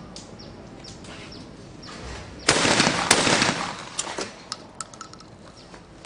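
Two 12-gauge skeet shotgun shots about half a second apart, starting about two and a half seconds in, with a ringing tail that dies away over about a second. A few sharp clicks follow, and birds chirp faintly.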